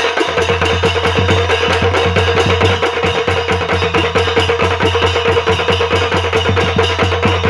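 Traditional Nepali drum ensemble playing together: a ring of small wooden-shelled drums beaten with sticks, a larger drum struck with a curved stick, and a pair of hand cymbals clashing, in a fast, steady rhythm of about five beats a second.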